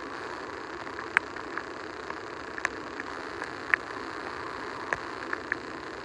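Steady rushing hiss of small waves breaking and washing up a sandy beach, with irregular sharp clicks scattered through it.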